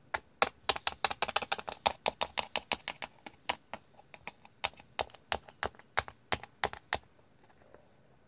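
A rapid run of sharp taps and clicks of small plastic toy pieces, several a second at first, thinning out and stopping about seven seconds in.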